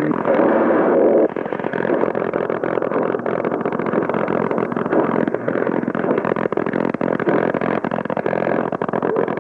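Shortwave receiver in AM mode being tuned down the 60-metre band. A station's audio cuts off about a second in as the tuning moves off 4800 kHz. What remains is hissing static with crackles and faint steady tones from weak stations.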